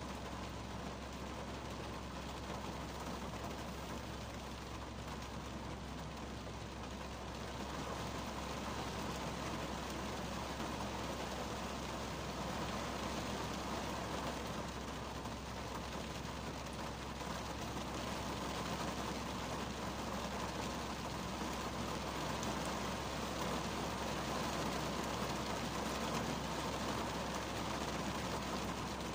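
Heavy rain drumming on the roof and windshield of a 2010 Kia Cerato, heard from inside the cabin as a steady patter that grows a little heavier after about eight seconds.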